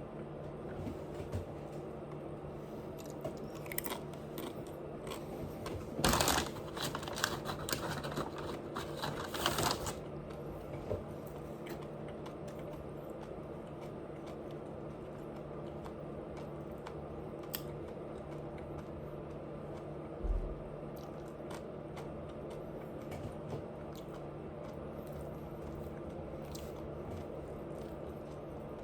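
A person eating crunchy food close to the microphone. There is a run of loud crunching bites from about six to ten seconds in, then quieter chewing over a low steady hum, with one dull thump about twenty seconds in.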